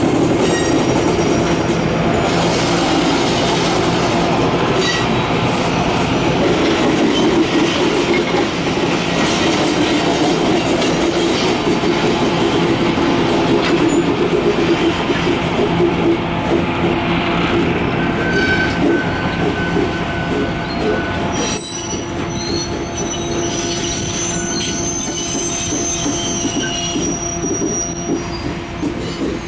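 Passenger train cars rolling past on the rails, with a steady engine drone under the rumble of the wheels. Thin, high wheel squeals come in during the second half.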